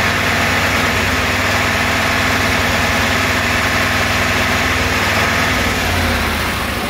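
Mercedes-Benz 2628 K 6x4 tipper truck's diesel engine idling steadily, a little quieter near the end.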